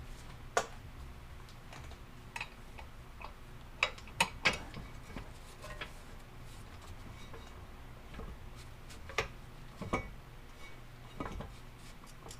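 Irregular sharp metallic clinks and knocks of a breaker bar and inner tie rod tool with crow's foot being fitted and worked on an inner tie rod end. The loudest is a quick cluster of three about four seconds in.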